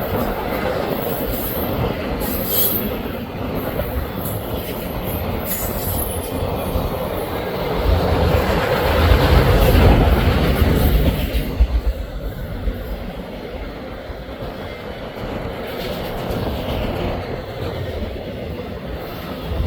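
Canadian National freight train's cars rolling past on the rails: a steady rumble and wheel noise that swells louder about eight to eleven seconds in.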